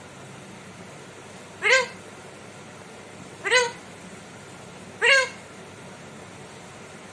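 Indian ringneck parrot imitating a cat's meow: three short meows about a second and a half to two seconds apart, each rising then falling in pitch.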